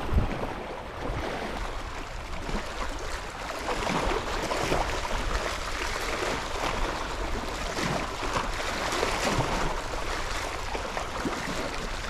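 Seawater lapping and splashing at the shore in a continuous wash that gently swells and eases.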